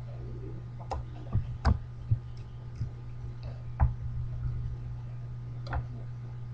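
A handful of sharp knocks and bumps, about six over several seconds, from a webcam being handled with fingers against it. A steady low hum runs underneath.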